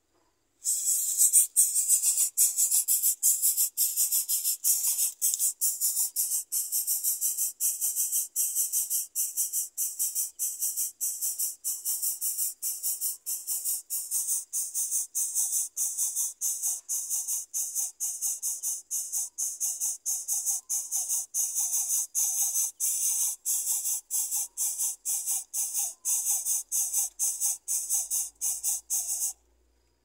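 Yellow-vented bulbul nestlings begging: shrill, rasping calls repeated in rapid pulses, about two to three a second. The calls start abruptly about a second in and cut off just before the end.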